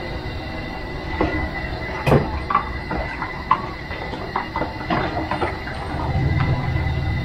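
Metal ladle clinking and scraping against a steel wok as fish sauce is stirred into a chili and sugar sauce, with a steady low rumble underneath.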